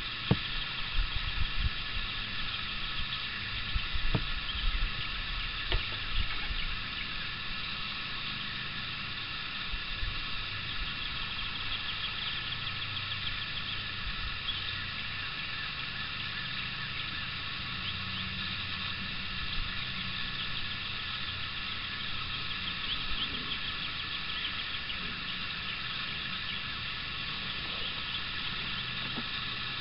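Steady hissing outdoor background on open water. Irregular low rumbling buffets, like wind on the microphone, come in the first several seconds and then settle into a steady low hum.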